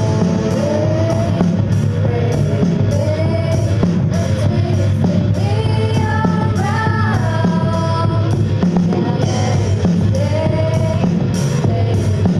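Live rock band performing: young female vocalists singing over electric guitar, electric bass and a drum kit.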